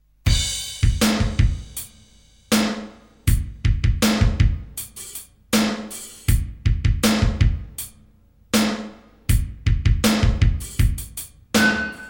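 Drum kit playing a steady, unaccompanied beat of kick, snare, hi-hat and cymbal, starting from silence just after the start, with a strong hit about every three-quarters of a second. Near the end a single held high note enters.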